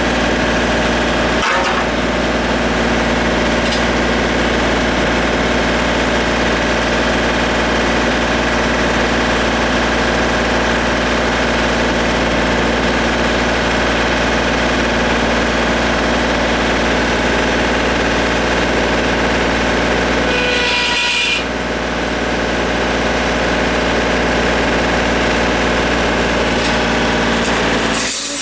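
Compact tractor's diesel engine running steadily, with a brief dip in level about three-quarters of the way through.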